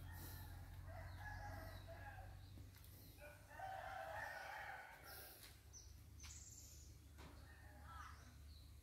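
A rooster crowing faintly, twice, the second crow louder, over a low steady hum.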